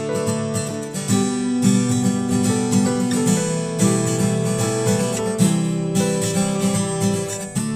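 Music: an acoustic guitar strumming chords, with the notes ringing over each other.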